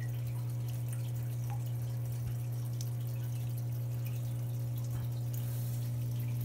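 Steady low hum with faint trickling and dripping water, from an aquarium air pump running a sponge filter.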